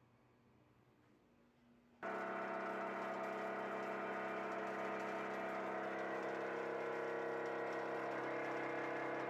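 A vibration resonator under a heavy block is switched on about two seconds in and drones steadily, a hum of several held tones that vibrates the load to ease its sliding.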